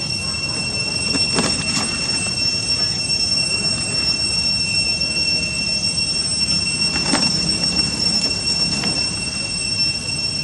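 Steady high-pitched drone of cicadas, unbroken throughout, over a low rumble, with a few short clicks or knocks.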